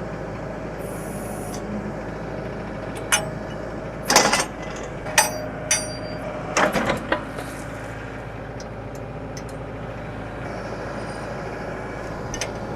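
Diesel engine of a Branson compact tractor running steadily while its backhoe works, with several sharp clanks in the first half.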